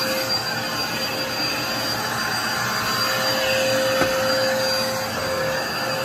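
Red canister vacuum cleaner running, its motor giving a steady whine over a rush of air.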